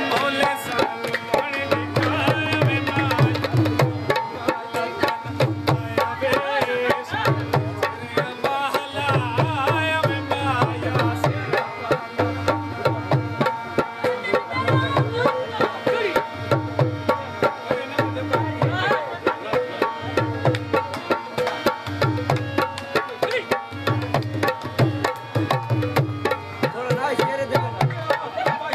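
Dholak hand drums playing a steady, repeating folk rhythm with a melody line over it.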